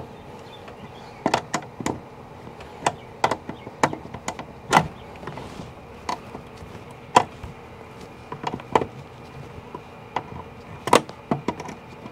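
Metal wrench clicking and clinking on the nuts of a Trombetta switch's terminal posts, in irregular single clicks a fraction of a second to about a second apart, as corroded terminal nuts are worked loose in a cramped space.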